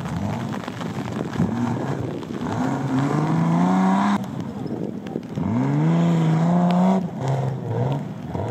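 Modified off-road jeep engines revving under heavy load as they climb a steep sandy slope, the pitch rising steadily through each climb. The sound breaks off abruptly twice, at cuts between vehicles.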